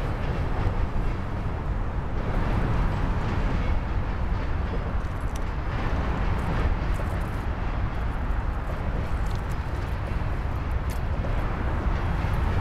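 Covered hopper cars of a freight train rolling past, a steady rumble with a few light clicks from the wheels.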